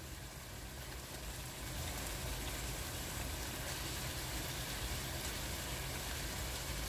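Sliced onions frying in hot soybean oil in a pot, a steady sizzle that grows a little louder about two seconds in.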